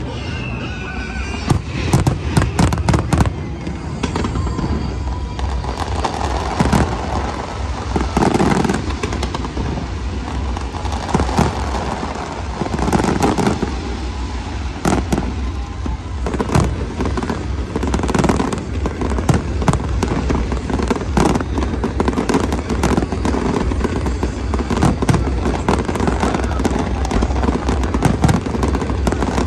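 Fireworks display: aerial shells bursting one after another, a continuous run of bangs and crackling.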